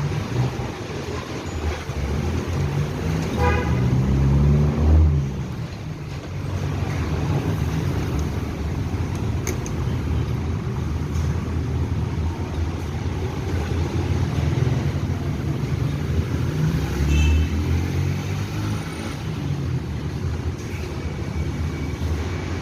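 Motor vehicles passing on a road: a steady rumble of traffic, with louder vehicles going by about four seconds in and again around seventeen seconds in, and a brief tone like a horn toot about three and a half seconds in.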